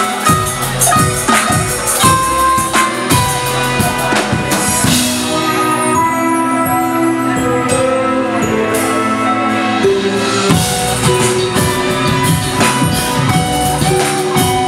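Live funk band playing: acoustic drum kit, electric guitar and synth keyboards. About five seconds in, the drums drop out and sustained keyboard chords hold for several seconds before the beat comes back in.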